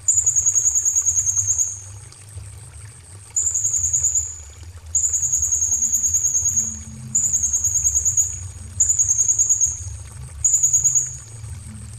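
A small songbird repeating a high, rapid, slightly falling trill, six times in a row, each about one to two seconds long, over a low steady rushing noise.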